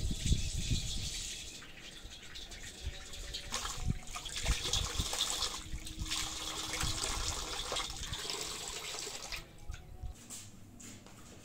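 Water running from an outdoor wall tap and splashing as hands and feet are washed under it. The flow stops abruptly near the end when the tap is turned off.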